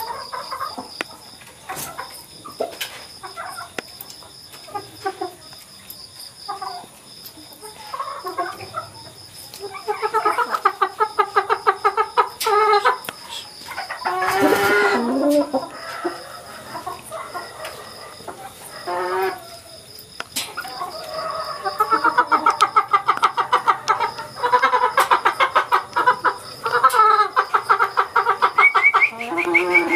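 Gamefowl chickens clucking in a pen, with quick runs of repeated clucks about ten seconds in and again through the last third, and one louder call near the middle.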